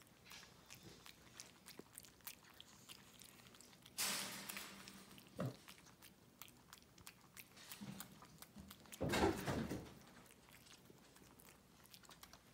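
Capuchin monkey eating scrambled egg: faint chewing and small clicking mouth sounds, with two louder bursts of noise about four and nine seconds in.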